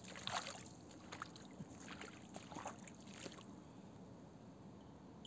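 Several short sloshing, scuffing noises in roughly the first three seconds, then only faint background.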